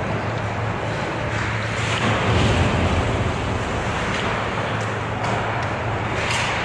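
Ice hockey rink during play: a steady low hum under a rushing hiss of skates scraping on the ice, swelling about two seconds in, with a few light clicks scattered through.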